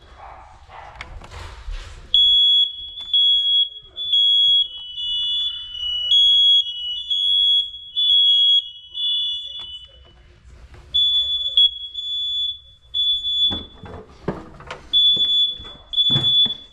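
Newly installed hardwired smoke detector sounding its alarm in a run of high-pitched beeps, with a second, slightly lower alarm tone overlapping at times. The alarm stops briefly twice. Rustling from handling the unit comes just before the alarm starts, and clicks and knocks come during the second pause.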